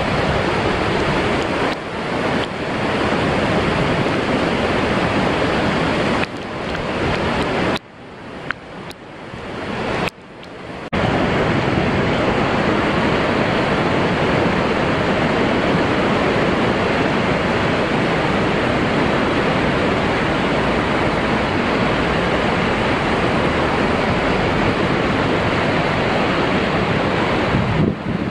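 Låtefossen twin waterfall and the river rapids below it: a loud, steady rush of falling water, with wind on the microphone. The sound drops away briefly a few times between about six and eleven seconds in.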